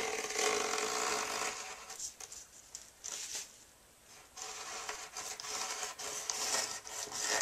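Utility knife blade slicing through partly cured, epoxy-wetted fiberglass cloth along the edge of a foam panel: a scratchy, rasping cut in stretches, with a short pause about four seconds in. The resin has reached the semi-cured stage at which the overhanging cloth cuts easily.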